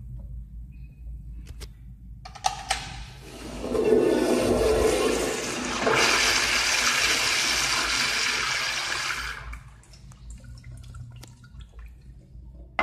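Commercial tankless toilet flushing through its chrome flushometer valve. A few clicks as the valve is tripped about two seconds in are followed by a loud rush of water lasting about six seconds, which cuts off sharply and leaves a faint trickle.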